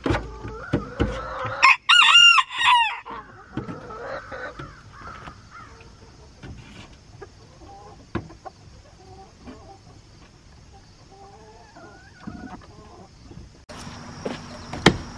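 A rooster crows once, loud, about two seconds in. Hens cluck softly around it. A single thump comes near the end.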